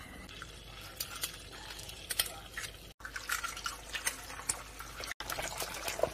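Cheonggukjang stew bubbling in an earthenware pot, then, after a cut about three seconds in, eggs frying in a hot pan with a crackling sizzle as more eggs are cracked in.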